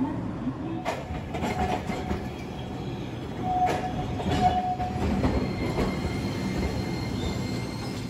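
Iyotetsu Moha 2100 streetcar moving along the rails at a tram stop: a steady rumble with knocks and clatter from the wheels on the track, and a brief wheel squeal about halfway through.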